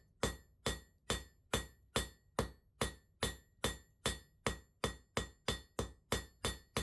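Blacksmith's hammer striking hot steel on an anvil in a steady, even rhythm, about two and a half blows a second, each blow ringing: hand forging to draw out the bar.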